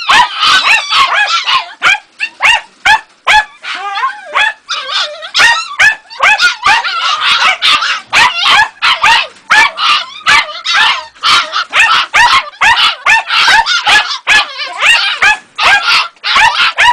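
Jagdterrier puppy yapping and barking at a caged red fox: rapid, high-pitched yaps several a second, almost without a break, mixed with whines.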